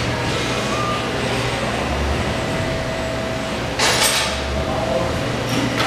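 Steady indoor shop background noise with a low hum and a faint steady tone, broken about four seconds in by a short, loud hiss.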